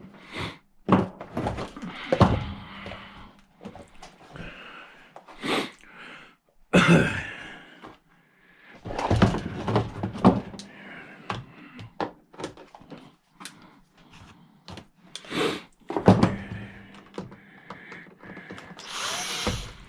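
Irregular knocks, clunks and clatter of a jump-starter pack's plastic casing and parts being handled and pried apart with hand tools, with a brief rustle near the end.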